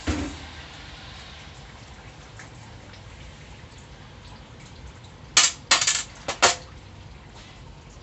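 Metal parts of a 4L60E automatic transmission being handled: a dull knock at the start, then a quick run of four or five sharp metallic clinks and clacks about five and a half seconds in.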